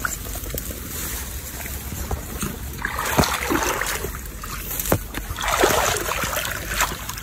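Water splashing and sloshing in a shallow reedy pond as a cage fish trap is set down into it, in two bouts, with a couple of sharp clicks between them.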